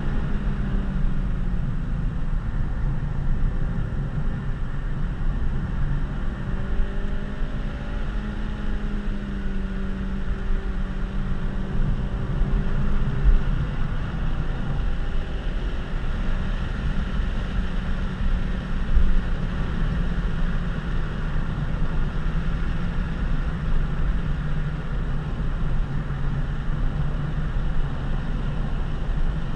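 Honda Civic Si (FG2) 2.0-litre four-cylinder engine running hard inside the cabin, with road rumble beneath it. The engine note climbs through the revs and then changes at a gear shift about 13 seconds in. A short thump comes near 19 seconds.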